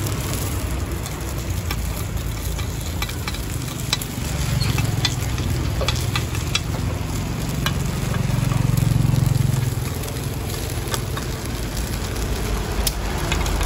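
Metal spoons clicking and scraping against a dimpled metal cake pan as small round cakes are turned, over a steady sizzle of batter frying in the wells. A low rumble swells and fades in the middle.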